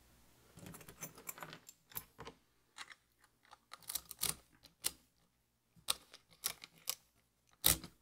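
Irregular small metallic clicks and clinks of an ASSA V10 lock being handled, with the loudest click near the end.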